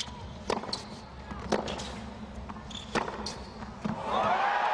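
Tennis ball struck by rackets in a rally on a hard court, a sharp pop about every second. Near the end, stadium crowd cheering swells up as the point ends.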